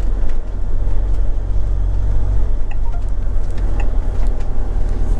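Motorhome engine and road noise heard from inside the cab while driving slowly, a steady low rumble with a few light clicks.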